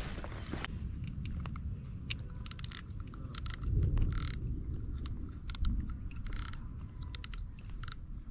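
Outdoor ambience by a lake: a steady high-pitched insect trill, a low rumble of wind on the microphone, and a scatter of short clicks and brief rustles, the clearest about four and six seconds in.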